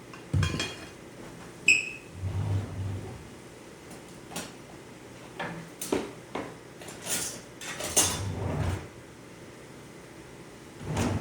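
Kitchen pans and utensils being handled: scattered knocks and clatters, a short ringing clink of metal early on, and a couple of brief scraping sounds later.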